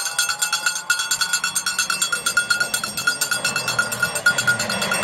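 A cowbell shaken quickly, many rapid ringing clangs, as a spectator greets an approaching car. Near the end a rally car's engine starts to come up underneath.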